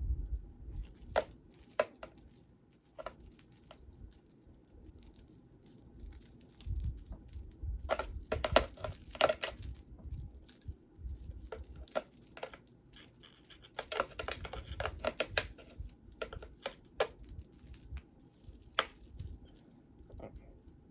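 Jewelry being handled: scattered light clicks and rustling as necklaces are picked up and moved about, in two busier spells.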